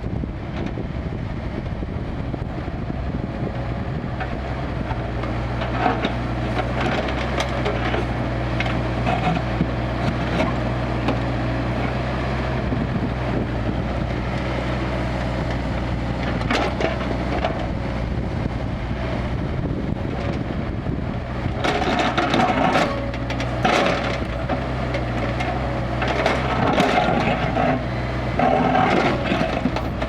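Kubota KX161-3 mini excavator's diesel engine running steadily, with irregular cracking and crunching as the bucket digs and scrapes earth. The crunching comes thicker and louder in the last third.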